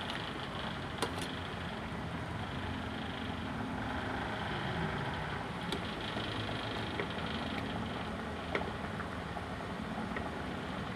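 Pot of pork sinigang boiling hard on the stove, giving a steady bubbling rush. A metal ladle clicks against the pot a few times, about a second in, midway and near the end.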